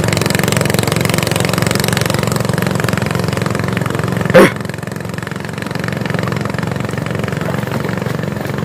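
Small single-cylinder petrol boat engine idling steadily, with a brief shouted exclamation about halfway through.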